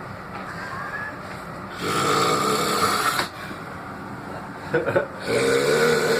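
A man snoring: two loud, drawn-out snores about three and a half seconds apart, each lasting about a second and a half, with a short sharp catch of breath just before the second.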